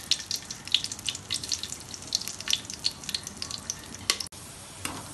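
Whole spices (bay leaves, cloves, cinnamon, cardamom, marathi moggu) spluttering in hot oil and ghee in a steel pot, a dense, irregular crackle of small pops over a low sizzle. The popping thins out and stops suddenly about four seconds in.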